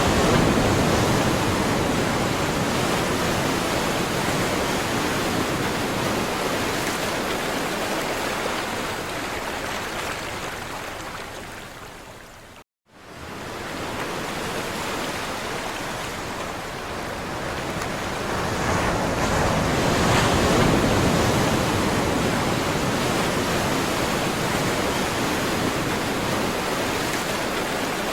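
Sea surf: waves washing in as a steady rush with slow swells. It fades to a moment of silence about halfway through, then comes back and builds to a loud swell.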